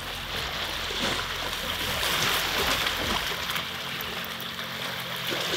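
Surf washing on the beach: a steady hiss of breaking and running water.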